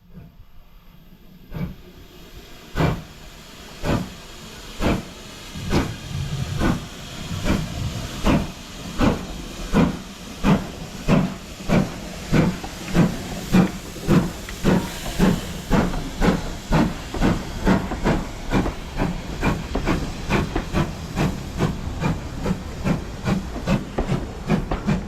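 Steam locomotive pulling away, its exhaust chuffing slowly at first, about one beat a second, and quickening steadily to two or three beats a second, with a hiss of steam under the beats.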